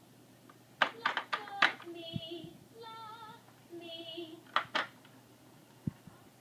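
Baby's electronic toy piano: plastic keys clacking under a baby's hands, and the toy answering with short warbling electronic notes or a sung snippet in between. A second flurry of key clacks comes near the end.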